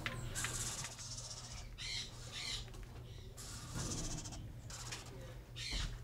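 Eastern screech owl chicks giving a series of short, raspy hissing calls, spaced irregularly, over a low steady hum.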